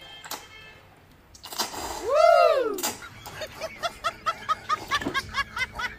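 Edited-in comedy sound effects. About two seconds in comes a loud pitched swoop that rises and then falls. It is followed by a fast run of short snickering chirps, about four a second.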